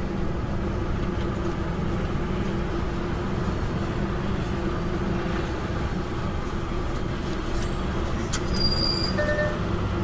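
Semi-truck diesel engine running steadily at low speed, heard from inside the cab. A click and a few short beeps come near the end.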